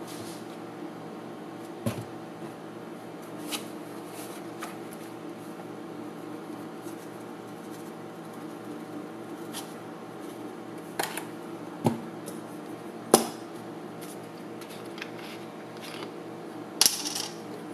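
A steady mechanical hum runs throughout, with scattered sharp clicks and knocks of things being handled. The loudest is a sharp knock about 13 seconds in, and a brief rustling burst comes near the end.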